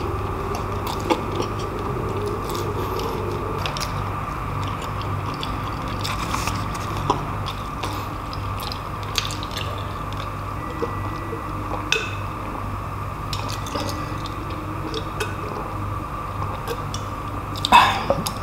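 Mouth sounds of eating white-fleshed dragon fruit and drinking from a glass: soft chewing with scattered small clicks over a steady low hum, then near the end a sharp knock as the glass is set down on the wooden board.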